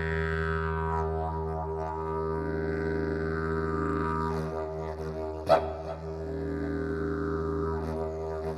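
Didgeridoo droning on E, its overtones shifting up and down over the steady low note. About five and a half seconds in there is one sharp hit, the loudest sound here.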